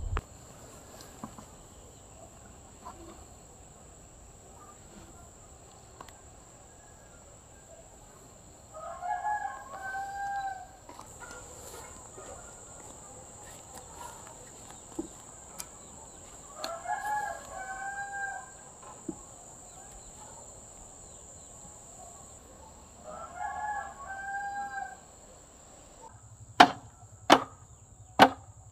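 A rooster crowing three times, each crow about two seconds long and roughly seven seconds apart, over a thin steady high-pitched tone. Near the end come four sharp chopping strikes in quick succession, louder than the crowing.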